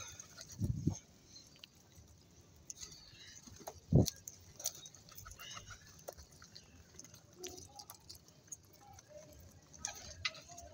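A flock of domestic pigeons close up on a concrete roof, with wings flapping, beaks pecking at the floor in small clicks, and soft cooing. Two low thumps stand out, about one second and four seconds in.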